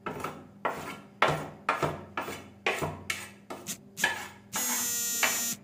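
A metal spoon scraping and tapping against a plastic plate again and again, knocking ground spices off into a glass bowl, about two or three strokes a second. Near the end a loud, steady buzzing tone sounds for about a second and cuts off.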